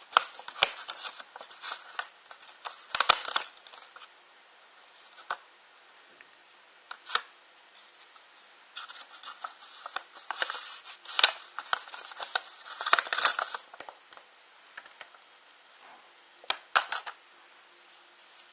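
A small box being opened and unpacked by hand: bursts of scraping, rustling and tearing with sharp clicks, separated by quiet pauses.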